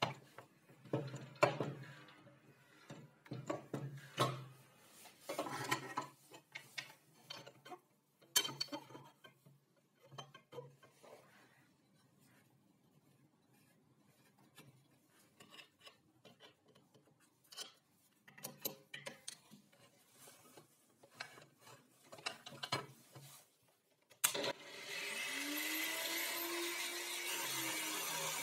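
Scattered knocks and clicks of a wooden angle-grinder stand being handled and bolted together. About three quarters of the way in, a Sparky angle grinder is switched on: its motor whine rises as the disc spins up, then runs steadily and loud without cutting yet.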